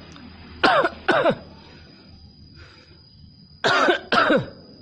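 A talking bird making four short harsh calls in two pairs, one pair about a second in and the other near the end, each call falling sharply in pitch.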